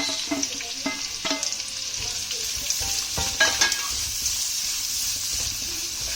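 Chopped onions sizzling steadily in hot oil and butter in a large frying pan, with a few clicks and scrapes from stirring, the sharpest about three and a half seconds in.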